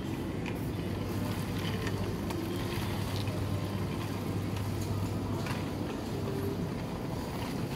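Shopping trolley rolling over a tiled supermarket floor: a steady low rumble from the wheels and rattling basket, with light clicks scattered through it.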